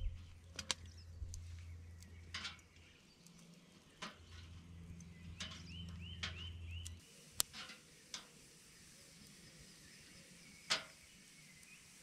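Steel tongs clicking against a wire-mesh grill grate as peppers are turned over campfire embers: sharp single clicks every second or two. A faint low rumble underneath stops about halfway through.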